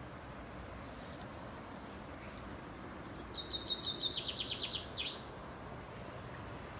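A songbird sings one short phrase about halfway through: a quick run of high, downslurred notes, around eight or nine a second, ending in a brief flourish.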